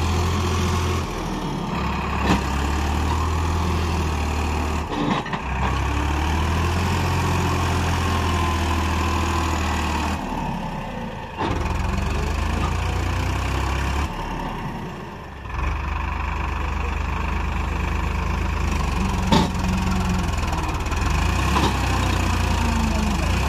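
Farmtrac 45 tractor's diesel engine running steadily with a deep low hum, which briefly drops off a few times.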